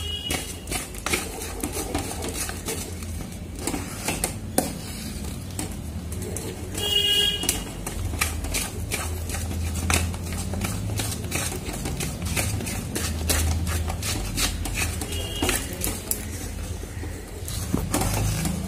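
Spatula scraping and tapping against a cooking pan as a thick sugar, milk and flour mixture is stirred, a run of irregular clicks and scrapes over a low steady hum.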